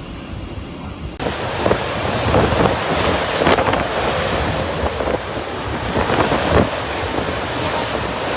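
Hurricane wind gusting hard against the microphone, a loud, dense rush with repeated swells. It cuts in suddenly about a second in, after a quieter steady hiss.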